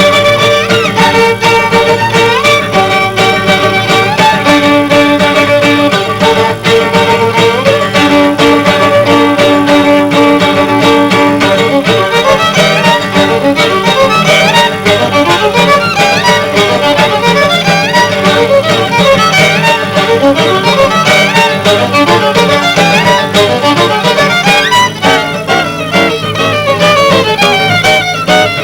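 Violin and guitar playing a jazz-fusion tune. The violin holds long notes with sliding pitch changes for about the first twelve seconds, then breaks into fast runs over the guitar.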